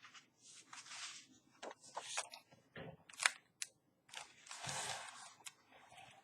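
Paper rustling and a scatter of small sharp clicks as the pages of a picture book are handled and turned, with one longer rustle past the middle.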